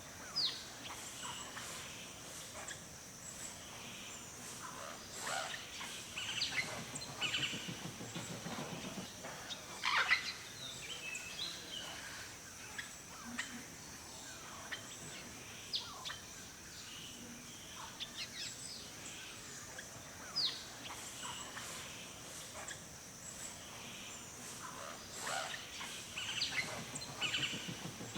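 Wild birds calling in a forest: scattered sharp chirps and quick down-slurred notes, over a steady high hiss. A low rapid rattle comes twice, about eight seconds in and near the end.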